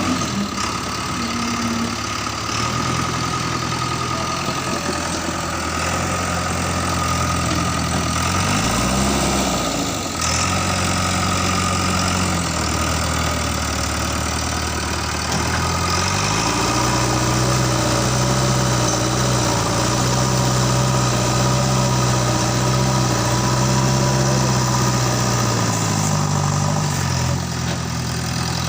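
JCB 3DX backhoe loader's diesel engine running with a steady high whine over it. It revs up and back down briefly about nine seconds in, is held at higher revs from about sixteen seconds in, and drops back to a lower speed near the end.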